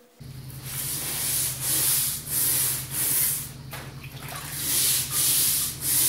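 Rhythmic scrubbing strokes on a wet, rusty cast iron table saw extension wing, the rust coming right off, about one to two strokes a second with a short pause near the middle. A steady low hum runs underneath.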